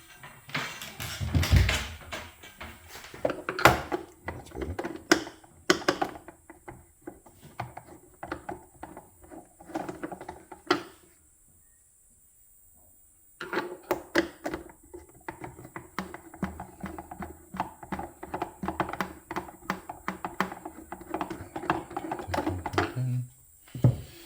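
Screwdriver and small tools clicking and knocking against the casing of a Breville Barista Express espresso machine as its screws are undone and parts handled. There are irregular knocks at first and a near-silent pause about halfway. After that comes a long run of quick ticking.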